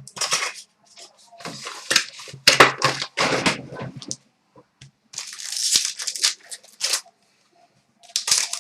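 Packaging of a hockey trading-card box being torn open and crinkled by hand: several rough, irregular tearing and crackling bursts with short pauses between.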